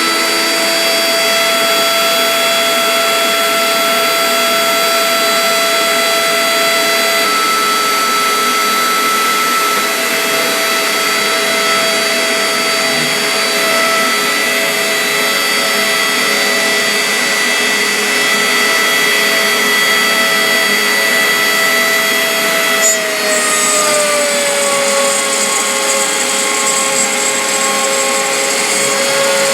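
CNC router spindle running with a steady whine made of several tones. About 23 seconds in there is a brief click, and the pitch drops a little and settles lower.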